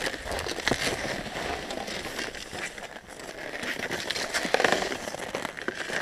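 Crackling, rustling handling noise on an action camera's microphone as it is jostled, with scattered clicks and knocks.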